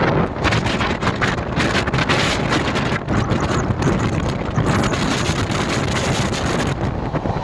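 Wind buffeting the microphone with the steady noise of a passenger express train running at speed.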